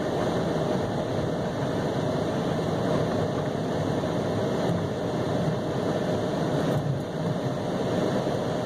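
Steady cabin noise of a car driving along a highway: tyre and road noise with the engine running, heard from inside the car.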